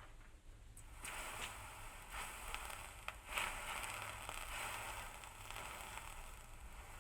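Welder crackling steadily, starting about a second in, while a spacer is welded onto a driveshaft carrier bearing bracket.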